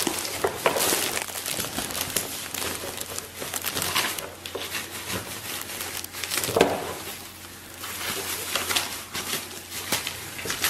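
Kitchen shears cutting through crisp roasted whole lamb: an irregular crunching and crackling of the crust and ribs, with a louder crunch about two-thirds of the way through.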